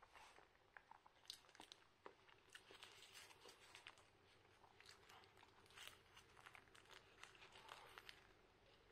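Mouth sounds of a man biting and chewing a soft steamed cake, with many small irregular smacks and crackles, and the plastic wrapper around the cake crinkling in his hand.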